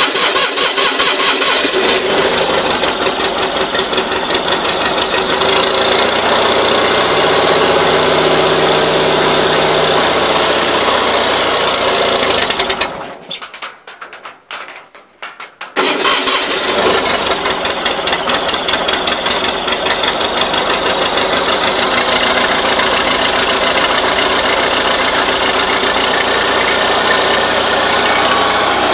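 Starter cranking the 450 garden tractor's twin-cylinder engine in long stretches without it catching, the engine having sat unused. The cranking stops for about three seconds near the middle, then starts again.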